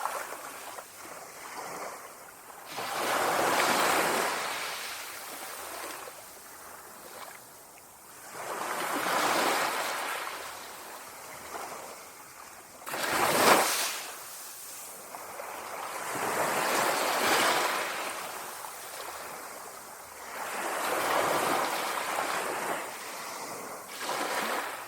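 Small sea waves lapping on a shore, each wash swelling and falling away about every four to five seconds. About halfway through, one wave breaks with a sharper, louder splash.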